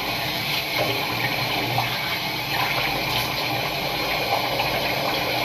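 Tap water running steadily into a sink while water is scooped and splashed onto the face with cupped hands to rinse off cleanser.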